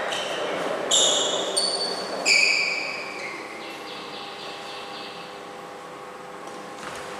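Badminton players' court shoes squeaking on the floor: several short, high squeaks in the first two and a half seconds, then a fainter drawn-out squeak that fades away.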